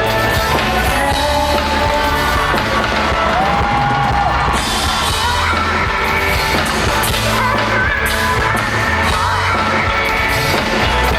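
Live pop-rock band playing a song with a woman singing lead, her held notes bending in pitch over steady bass and drums.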